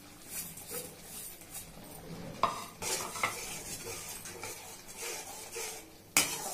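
Perforated steel skimmer spoon stirring thick chilli sauce in a steel kadai, scraping and clinking against the pan, with a sizzle from the hot sauce. A sharp metal knock comes about two and a half seconds in and a louder one near the end.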